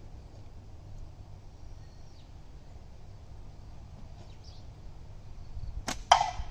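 A slingshot shot near the end: a sharp snap as the latex bands are released, then a fifth of a second later a loud hit with a short ringing tail as the steel ball strikes the metal can target.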